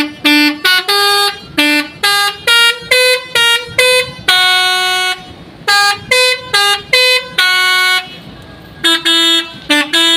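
Basuri telolet bus horn playing a quick tune: a run of short, loud notes jumping between pitches, with a longer held note around four and seven seconds in, a short pause about eight seconds in, then more short notes.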